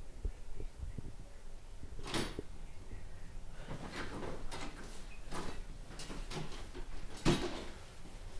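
An interior door being opened and closed, heard as a series of knocks and clatters. The sharpest, loudest knock comes near the end.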